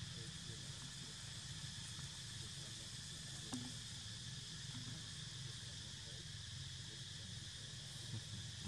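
Faint, steady insect chorus, a high drone that does not change, over a low background hum.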